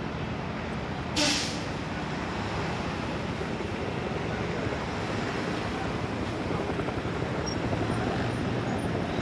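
Steady low rumble of idling fire engines and a large fire outdoors, with one short, sharp hiss about a second in.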